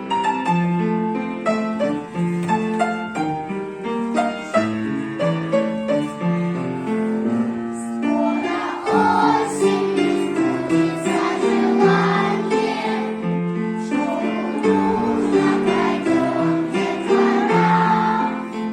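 Piano music with singing voices joining about eight seconds in.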